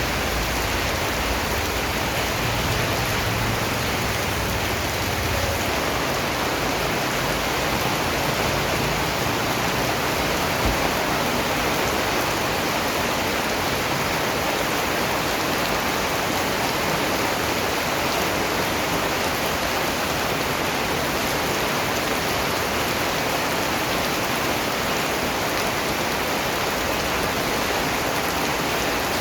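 Steady rain falling and pattering on surfaces: an even, continuous hiss, with a low rumble underneath for the first few seconds that then fades.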